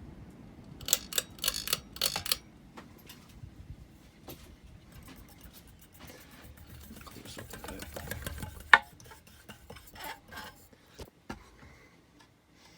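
Handling noise: a quick run of clicks and rattles about a second in, then scattered single clicks, with one sharp loud click about two-thirds of the way through.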